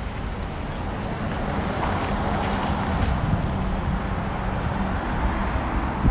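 Wind buffeting the microphone in uneven low rumbles over a steady hum of road traffic.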